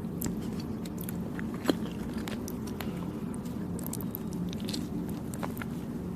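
Close-up chewing of soft, chewy Thai desserts (khanom Thai): wet, sticky mouth clicks scattered through, with one sharper click about a second and a half in.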